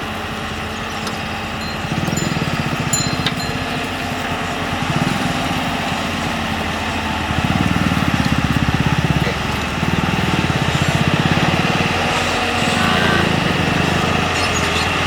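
JCB 3DX backhoe loader's diesel engine running under load, rising in surges about 2, 7.5 and 11 seconds in as the machine works.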